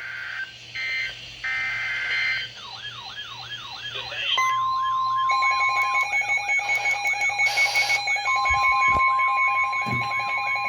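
Emergency Alert System tones from receivers overlapping: a few short data bursts of the alert header, then a warbling alarm at about three sweeps a second. Steady high-pitched attention tones join it about four seconds in. Together they announce a special marine warning.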